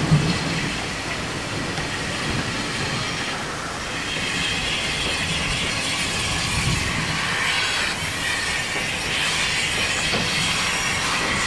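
Bulleid West Country class steam locomotive 34007 Wadebridge coasting slowly into a station platform, its wheels rumbling and clacking over the rail joints. From about four seconds in a high wheel squeal rises over the running.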